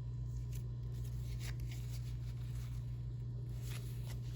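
Faint brief rustles and light clicks of Pokémon trading cards being handled, a few times, over a steady low hum.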